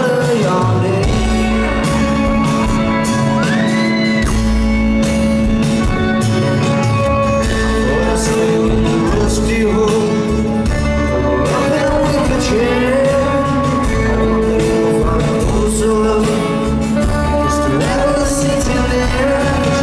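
Rock band playing live in a large hall: guitars and drums with singing over them, loud and continuous.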